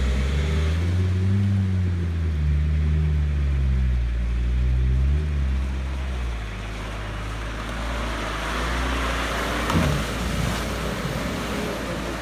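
Off-road 4x4's engine revving up and down as it drives through mud, then running lower and steadier; from about eight seconds in, muddy water splashes as the vehicle ploughs into a deep puddle.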